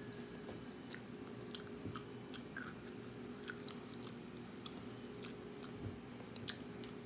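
Faint chewing of a large gummy worm: soft, scattered wet mouth clicks over a steady low hum.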